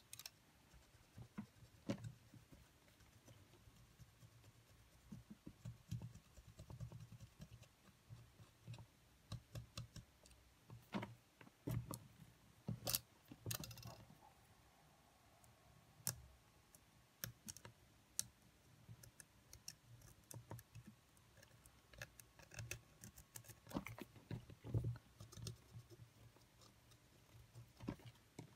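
Faint, irregular clicks and light taps of small plastic and metal parts of a cassette Walkman being handled and fitted by hand, with a brief rustle about halfway through.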